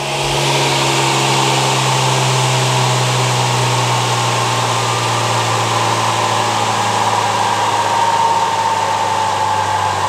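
Electrolux washing machine's inverter motor, driven by a frequency converter at high frequency, spinning fast: a steady hum and whine over a whooshing rush of air. A higher tone in the whine sinks slightly near the end.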